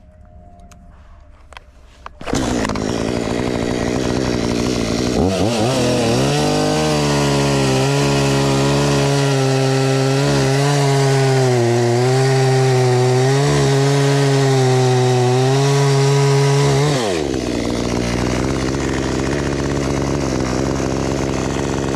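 Parkside PBKS 53 A2 chainsaw's 53 cc two-stroke engine opening to full throttle about two seconds in, then labouring at a lower, wavering pitch as the chain cuts through a Turkey oak log for about ten seconds. Near the end the revs climb back up as the cut finishes, and the engine drops off.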